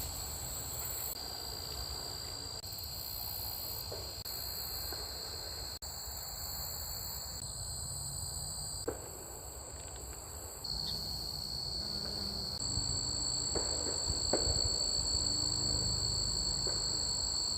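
Crickets and other singing insects trilling steadily in trailside vegetation, several insects at two high pitches overlapping and taking turns, over a low rumble.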